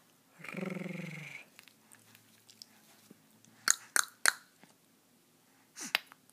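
Baby making tongue clicks: three sharp clicks in quick succession a little past halfway, then a couple more near the end. A short hummed voice sounds near the start.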